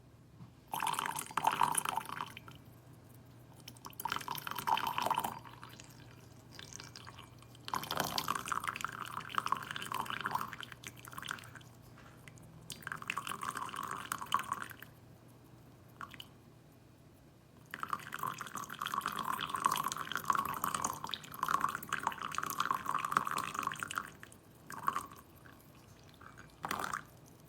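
Water poured in a thin stream from a gooseneck kettle, in about six separate pours of one to six seconds each with short pauses between them.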